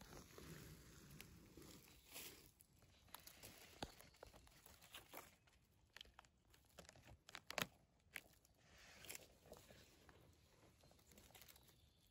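Faint rustling and crackling of dry leaf litter and fallen conifer needles under a hand, with scattered small snaps, as a summer porcini (Boletus aestivalis) is worked loose and pulled up from the forest floor. A sharper snap comes about seven and a half seconds in.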